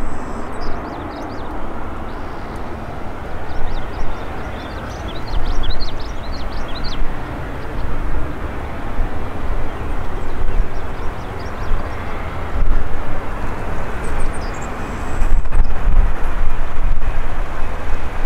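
Jet airliner engine noise on landing: a steady broad rumble that swells again near the end. A run of short high chirps sounds over it about four to seven seconds in.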